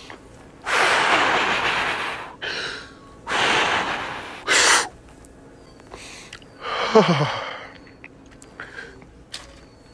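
A man's heavy, exaggerated breathing, put on to act nervous: three loud breaths in the first five seconds, then a breath that ends in a falling voiced sigh about seven seconds in.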